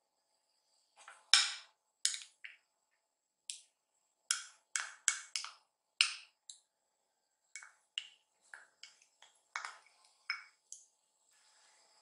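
A spoon clinking and tapping against a small glass dish as mayonnaise is scraped out onto the tuna: a string of about twenty short, sharp knocks at an uneven pace.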